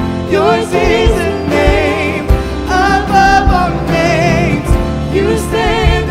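A worship song: sung vocals with wavering, held notes over instrumental accompaniment with a steady beat.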